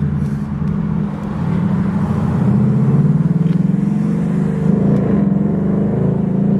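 Ford Mustang GT's Coyote 5.0 V8 running while the car is driven, with a steady engine note that gets louder about two seconds in.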